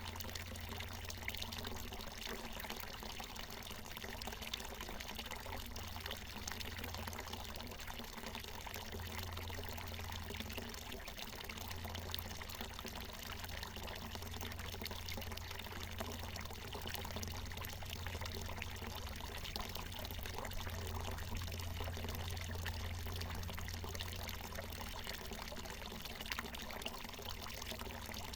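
Water from a natural mountain spring falling in a steady pouring stream, a continuous splashing with no pauses.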